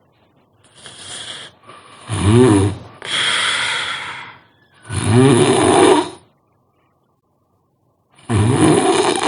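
A sleeping person snoring: three loud pitched snores about 2, 5 and 8.5 seconds in, a long breathy out-breath after the first, and a softer breath near the start. There is a pause of about two seconds before the last snore.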